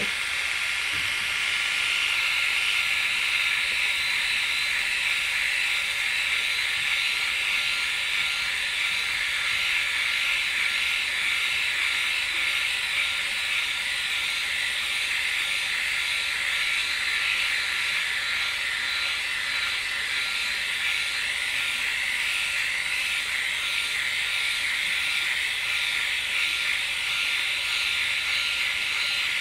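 Flawless Legs electric hair remover running steadily against the skin of a leg: a continuous high hiss with a faint steady whine.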